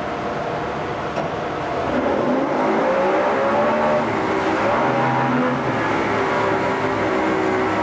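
2002 Yamaha 50 hp three-cylinder two-stroke outboard running in gear in a test tank. About two seconds in it revs up, its pitch rising, and holds at the higher revs while the propeller churns the water.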